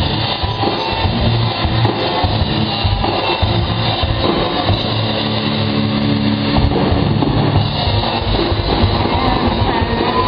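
Live rock band playing with electric guitars and a drum kit, an instrumental passage without vocals.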